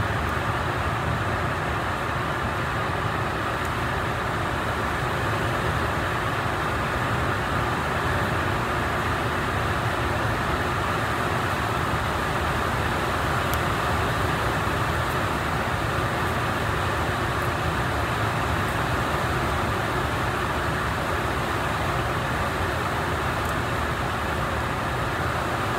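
Steady, even background noise with a low rumble and a hiss, and a few faint ticks.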